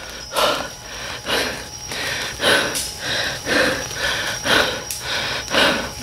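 A person breathing hard and fast close to the microphone, panting about two breaths a second.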